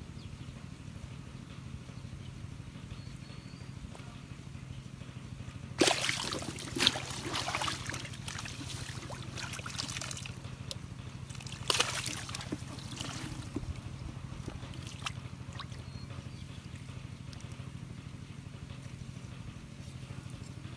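Water splashing and sloshing in a small muddy pool in a hole, twice: a longer bout about six seconds in and a shorter one about twelve seconds in, over a steady low hum.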